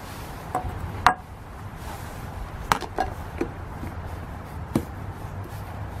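A serving spoon and a food container with a plastic lid being handled around a slow cooker: about six sharp taps and clicks, the loudest about a second in, over a steady low hum.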